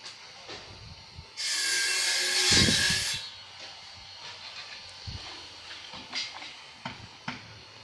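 Loud burst of hissing static with a steady high tone running through it. It starts about one and a half seconds in and lasts about two seconds, with a low thump near its end. Scattered sharp clicks and knocks follow.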